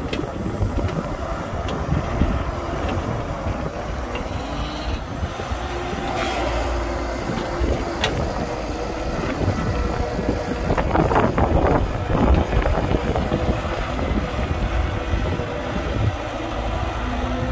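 Heavy diesel construction machinery running steadily under load, with a louder burst of clatter about eleven seconds in.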